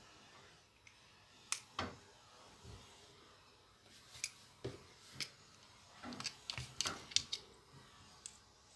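Scattered small clicks and taps of hard plastic and metal parts being handled and pushed onto the tip of an electric eraser, with a quick run of clicks about six to seven seconds in. The eraser's motor is not running.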